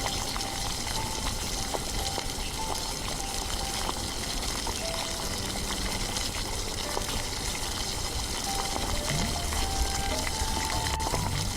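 Soft background music, a sparse stepping melody, over a steady hiss from the miniature cooking.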